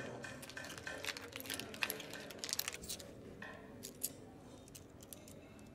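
Faint clinking and rustling as a metal-chain necklace hung with trinkets is handled and a small pouch on it is picked open by hand, with scattered light clicks.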